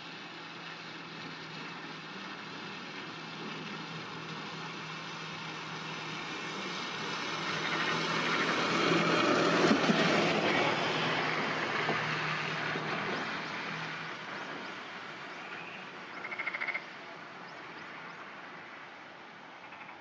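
A vehicle passes by: its noise swells to a peak about halfway through and fades away over several seconds. A few seconds before the end, a pond frog gives one short, pulsed croak.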